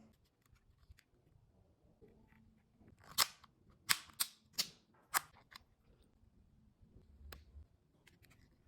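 Sharp plastic clicks from a hot-swap mechanical keyboard kit being handled: five clicks in quick, uneven succession over about two seconds, one more click a couple of seconds later, and a few faint ticks.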